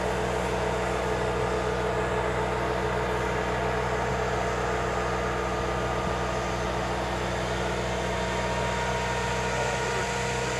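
Armored bridge-launcher vehicle's engine running steadily at idle, a constant hum with a steady whine above it, while its launch arm folds back after laying the scissor bridge.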